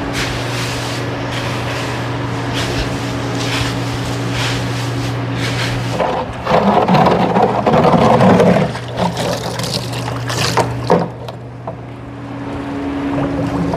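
Steady hum of a barn wall fan's motor, with scattered knocks and rustles of work in the stalls. A louder, rough scraping-and-rustling stretch comes about six seconds in and lasts about three seconds.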